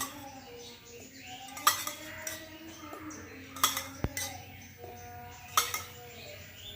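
A spoon clinking against a container about every two seconds as spoonfuls of water are measured out and counted, four clinks in all.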